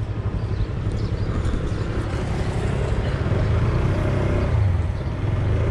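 Street traffic: a steady rumble of motorbike engines.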